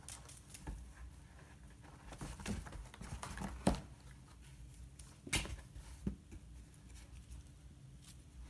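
Kittens' paws scuffling on carpet and batting at a floor mirror during play, with scattered sharp taps, the loudest about three and a half and five seconds in.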